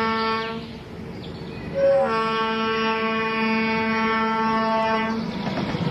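Model steam locomotive's whistle tooting: a steady tone ends just under a second in, then after a short chirp a long steady toot of about three seconds, over the clatter of the train running on its track.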